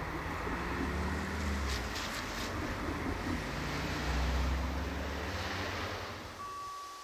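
A Class 628 diesel railcar's engine drone dying away as the train draws off along the line, with a few rail clicks about two seconds in. Wind buffets the microphone, and the sound fades out near the end.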